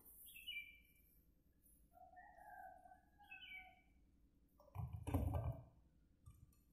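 Birds chirp a few times in the background. About five seconds in, shallots, garlic cloves and red chillies are tipped from a plate into a stone mortar (cobek), landing with a brief clatter of knocks on the stone.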